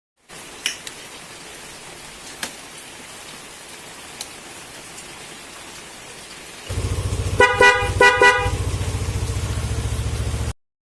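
A few faint clicks, then a Yamaha NMAX scooter's engine starts running with a steady low rumble about two-thirds in. A newly fitted Denso snail horn sounds two short honks over it.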